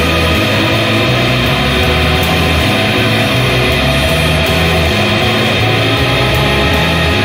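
Shoegaze rock music: a dense, unbroken wall of electric guitar sound over shifting bass notes.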